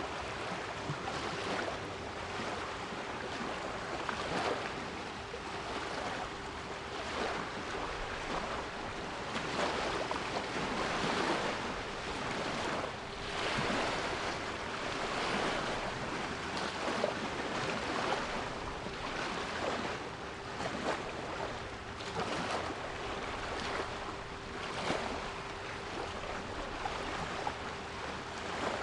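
Sea waves washing in a continuous rush that swells and eases every second or two, with a steady 396 Hz pure tone held underneath.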